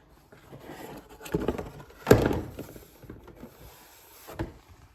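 Handling noise of a plastic remote control being moved and set down: rustling with dull knocks, the loudest about two seconds in and a smaller one near the end.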